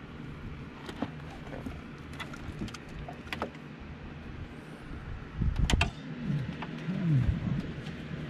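Wiring and a USB cable being handled and pulled through the dashboard behind a removed head unit: scattered plastic clicks and rattles of connectors, with a louder rubbing, dragging noise of cable sliding against plastic panels between about five and seven seconds in.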